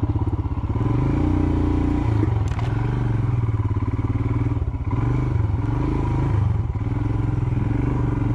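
Royal Enfield Himalayan's 411 cc single-cylinder engine running at low speed, its pitch rising and falling with the throttle as the bike picks its way over slippery ground.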